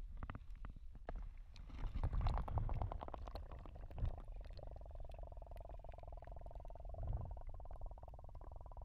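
Muffled underwater sound from a camera held below the surface: low rumbling and sloshing with scattered clicks and taps, loudest around two seconds in. A steady hum joins about halfway through and steps up in pitch near the end.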